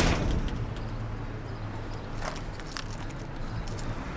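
Steady low rumble of city street traffic, with a sharp click at the very start and a few faint ticks and taps a couple of seconds in.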